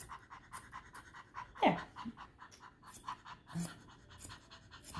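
Small Poodle–Bichon mix dog panting quickly and evenly, several short breaths a second. A brief sound falling in pitch cuts in about a second and a half in.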